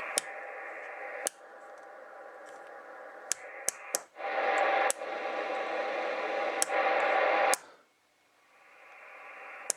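Ranger AR3500 transceiver hissing with receiver static through its speaker, broken by sharp clicks as its controls are worked. The static changes level several times, cuts out about 8 seconds in and then swells back. No power hum is heard: the new power plug and added coils have cured it.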